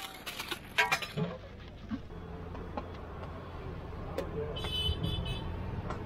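Aluminium foil crinkling as a packet is pulled open, over steady roadside traffic noise; about two-thirds through, a vehicle horn gives a short, high toot of about half a second.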